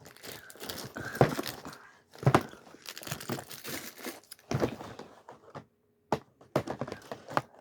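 Lego advent calendar packaging crinkling and rustling as it is handled, in irregular bursts with a few sharper crackles.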